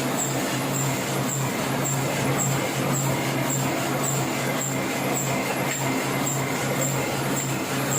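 Heidelberg offset printing press running steadily: a steady low hum with a sharp high tick repeating about twice a second.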